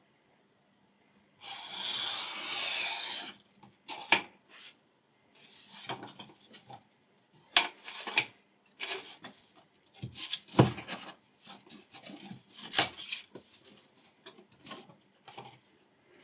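Folded paper sheets being sliced through by a sharp kitchen knife. About a second and a half in there is one long rasping cut lasting about two seconds, followed by a string of short slicing strokes and a few sharp clicks.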